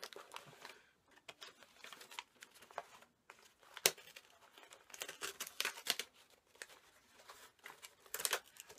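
Packaging being torn and crinkled open by hand, in irregular rustles with scattered sharp clicks and snaps; the loudest snap comes about four seconds in.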